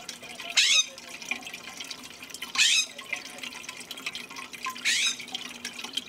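Water trickling and dripping in a ceramic bird fountain, with three loud, harsh bird calls about two seconds apart.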